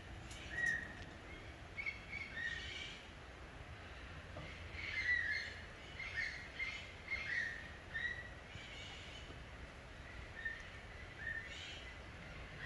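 Birds calling: many short calls in quick clusters, busiest in the middle, over a steady low background rumble.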